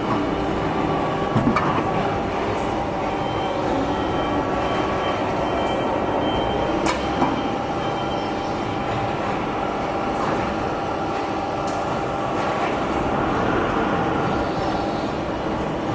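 A dental floss making machine, a vertical hydraulic press, running with a steady mechanical drone and a few sharp clicks as it cycles.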